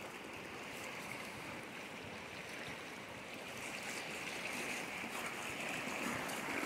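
Steady rush of moving water, with no distinct splashes.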